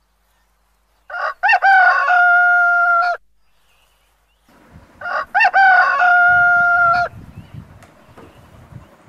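A rooster crows twice, loudly, each crow a few quick rising notes ending in a long held note, with a short pause between the two.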